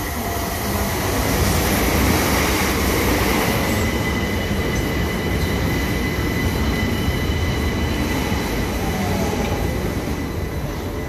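London Overground Class 378 electric multiple unit running slowly into the platform, wheels rumbling on the rails with a steady high whine through most of the pass.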